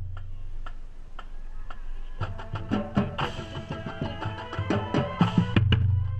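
Marching band: about two seconds of sparse, light clicking percussion, then the full band comes in with sustained chords and repeated drum hits.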